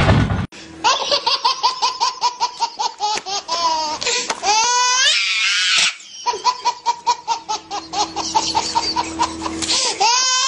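Baby laughing hard in quick repeated bursts, several a second, with high squeals near the middle. A brief loud noisy burst cuts off about half a second in.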